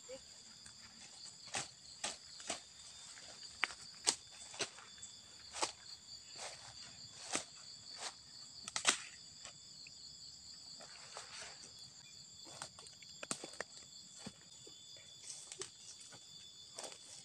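Footsteps tramping through grass and undergrowth, with irregular crunches and snaps of stems and leaves underfoot. Under them runs a steady, high-pitched chorus of insects such as crickets.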